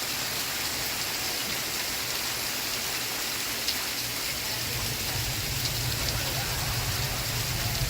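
Steady rain hiss, an even patter of rain on a surface. About halfway through, a low rumble comes in under it.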